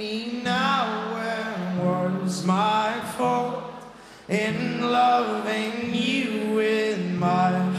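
Live folk-rock band: a male lead voice sings several drawn-out phrases with other voices in harmony, over low held notes. The sound drops off briefly between phrases about three and a half seconds in.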